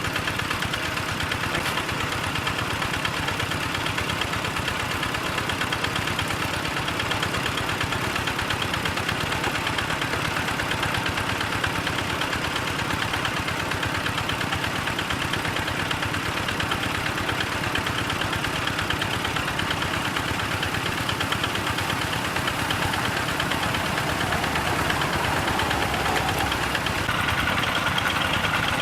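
Small engine driving an irrigation water pump, running steadily at an even speed and getting slightly louder near the end.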